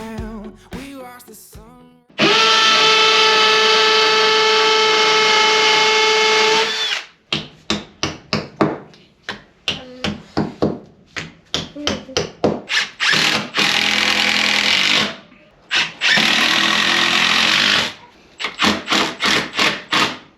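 Power drill running with a steady whine for about five seconds, then worked in many short trigger bursts with two more longer runs, as when driving screws.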